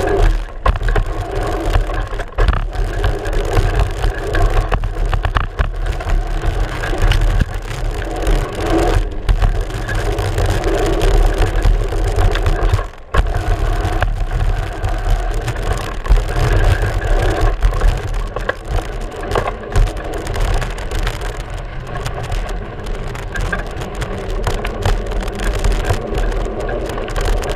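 Mountain bike riding down a rough trail, picked up by a GoPro Hero3 mounted on the front fork: a steady rumble of wind and tyres, broken by frequent rattles and knocks as the bike goes over rough ground, with a brief drop-off about halfway through.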